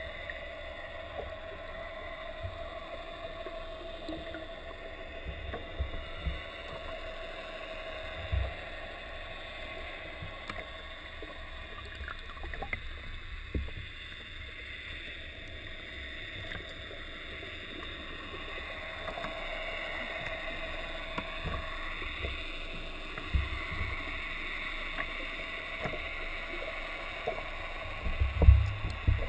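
Underwater sound as picked up by a camera in a waterproof housing: a steady muffled wash of water with a faint steady hum. Low thumps come now and then, with a louder cluster of them near the end.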